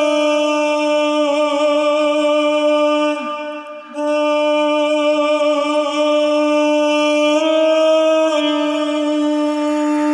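Soundtrack music: a long held, droning note with a slow waver, dropping away briefly about three and a half seconds in and then returning.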